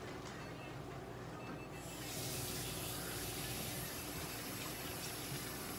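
A steady rushing hiss starts suddenly about two seconds in and holds level, over a low steady hum of room equipment.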